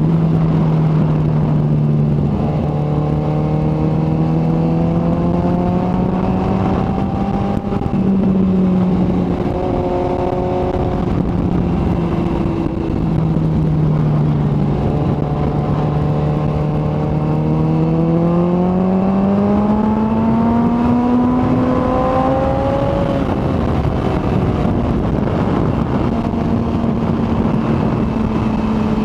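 Kawasaki ZX-14R inline-four engine running under way, its pitch climbing slowly and dropping back several times as the throttle is rolled on and off, over a steady rush of noise.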